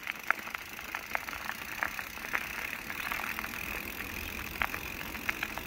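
Bicycle rolling along a trail: steady tyre noise with scattered sharp clicks and rattles from the bike over the rough surface.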